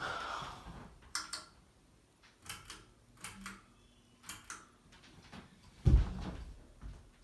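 Pull-chain switch of a Harbor Breeze ceiling fan clicking several times with a light rattle of chain, switching the fan on to a speed setting, followed about six seconds in by a single louder dull thump.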